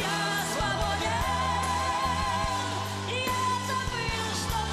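A boy singing solo, holding long notes with a wavering vibrato over instrumental backing.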